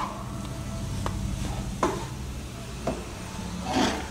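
Wooden spatula stir-frying instant noodles in a pan, with a light sizzle and a few sharp knocks of the spatula, and a longer scrape near the end. A steady low hum runs underneath.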